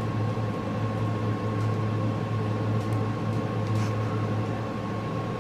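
Steady low hum with a faint steady high tone above it: room background noise.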